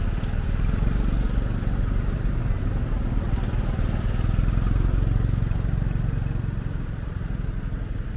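Vehicle engine and road noise while driving: a steady low rumble that swells a little midway.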